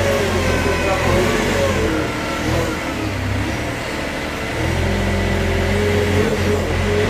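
Kramer Allrad 1245 compact telescopic loader's diesel engine working under load as it pushes manure and straw with its bucket. The engine note rises and falls, eases off about three seconds in and picks up again about five seconds in.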